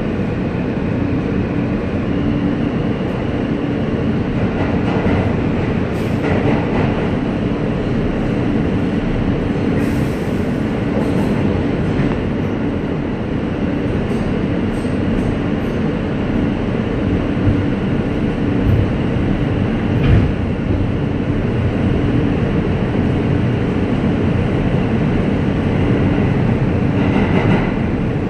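Inside an R160A New York City Subway car running through a tunnel: a steady rumble of wheels on rail with a constant hum under it, and a few short, sharp clacks.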